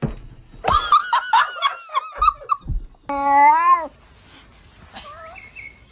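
A cat meowing: a run of short, wavering high cries, then one longer drawn-out meow about three seconds in.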